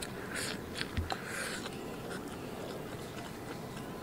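A person eating from a bowl with chopsticks: two short noisy slurps as food is shovelled into the mouth from the bowl's rim, with a soft bump about a second in, then chewing with a few light chopstick clicks. The food is soft braised pork belly with preserved mustard greens (meigan cai kou rou).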